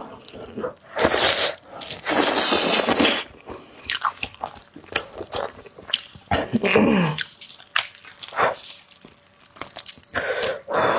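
Close-miked eating: biting and chewing soft, fatty braised pork knuckle, with wet smacking and clicking of the mouth and a louder, longer wet sound about a second in.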